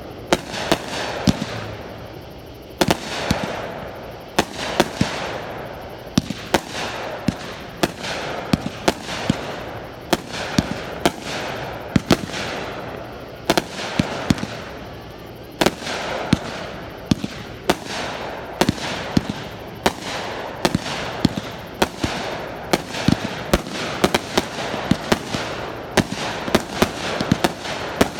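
Fireworks display: a fast, irregular string of sharp bangs from shells launching and bursting, several a second, over a continuous hiss.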